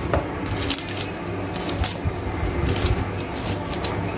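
Knife slicing through scallion held in the hand, short crisp cuts about twice a second, over a steady low hum.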